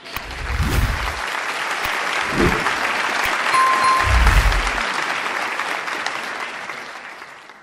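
A crowd applauding, used as a sound effect, with a few low thumps and a short ding partway through. The clapping fades out toward the end.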